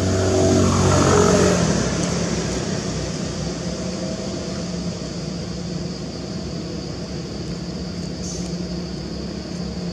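A motor engine runs, shifting in pitch and loudest in the first second and a half, then settles to a steady low hum.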